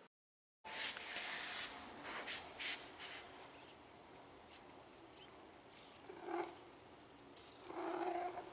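Rustling handling noise with two sharp clicks in the first few seconds, then a cat giving two short meows, one about six seconds in and a longer one near the end.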